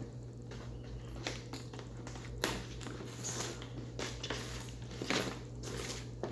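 Cardboard toy packaging being handled and pried open by hand: scattered rustles, taps and clicks of cardboard and plastic, a few sharper knocks among them, over a steady low hum.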